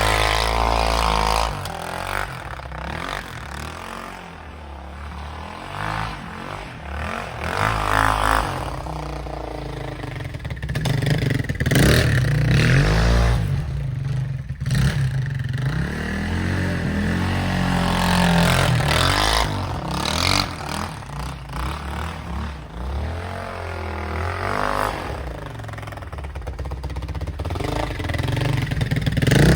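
Yamaha Raptor 660 ATV's single-cylinder four-stroke engine running and being revved up and down several times.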